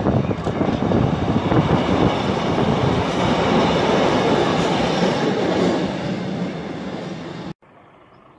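Northern Class 150 diesel multiple unit passing close beneath, loud train noise with repeated knocks from the wheels, easing slightly toward the end. About 7.5 s in it cuts off suddenly to a faint steady outdoor background.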